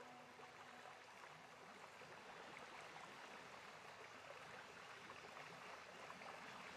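Near silence: a faint steady hiss, with the last of the background music dying away within the first second.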